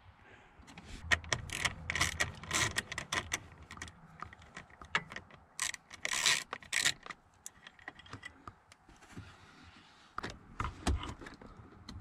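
Socket wrench and extension clicking and rattling in irregular clusters as a small 5 mm bolt on the steering column is loosened and turned out, with a quieter pause about two thirds of the way through.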